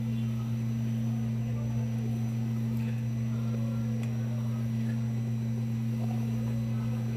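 A steady low hum of two tones throughout, with faint handling sounds of towels and hands on the pressure cooker as its lid is twisted tight.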